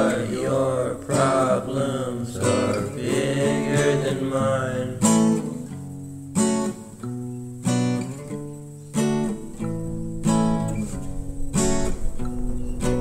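Background music: strummed acoustic guitar chords, struck one after another with short gaps from about five seconds in.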